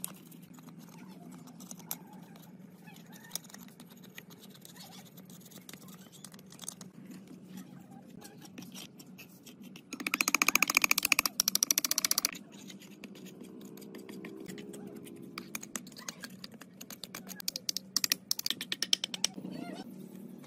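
A metal rod scraping and picking caked dirt and rust off an old BMW gearbox's cast aluminium casing, in scattered clicks and scrapes. About ten seconds in, a loud, rapid scraping runs for about two seconds as the rod digs dirt out of the bellhousing. A brush scrubs the casing near the end.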